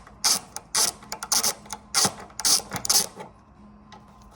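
Hand ratchet wrench clicking in about six short back-and-forth strokes over three seconds, then stopping, as a bolt is worked loose.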